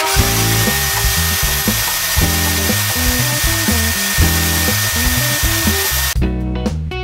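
Vacuum cleaner running with a steady rushing hiss and a high whine as its wand is drawn over the wooden slats, cutting off suddenly about six seconds in.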